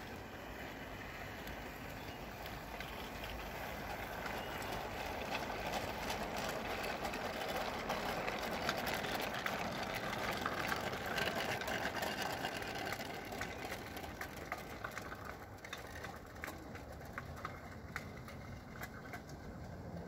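O gauge model train rolling past on garden track: a scratch-built locomotive hauling vintage Hornby wagons, a rolling rumble that grows louder midway and then fades, with a steady stream of sharp clicks from the wheels.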